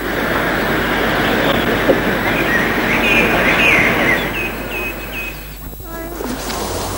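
Birds chirping over a steady rushing noise, with a run of short repeated chirps about four to five seconds in. The rushing noise drops away briefly about a second before the end.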